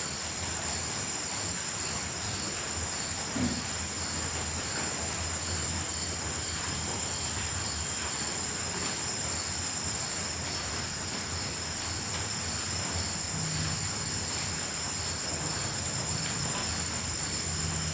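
Crickets and other night insects trilling: a steady high-pitched drone with an evenly repeating chirp over a continuous hiss. A brief low knock comes about three and a half seconds in.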